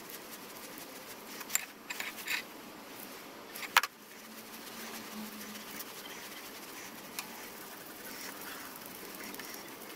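Faint scattered clicks and light metallic taps of small hand tools being handled on a steel cylinder block, the sharpest just before four seconds in, over a low steady hiss.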